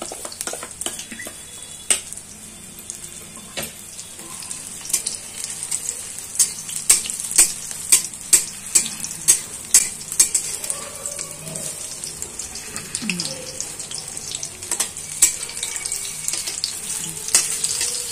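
Besan-battered onion rings deep-frying in hot oil in a steel kadhai: a steady sizzling hiss with sharp crackles, a regular run of about two a second in the middle. A metal spatula stirs and moves the rings in the pan.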